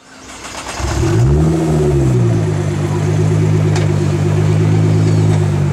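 Nissan GT-R's twin-turbo V6 with an Akrapovič exhaust, revved while parked: the sound fades in, the revs rise and drop back about a second in, hold steady for a few seconds, then start to climb again near the end.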